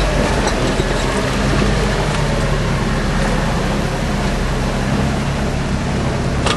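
Off-road 4x4 truck's engine running steadily at low trail-crawling speed, heard from inside the cab, with a haze of road and body noise over it.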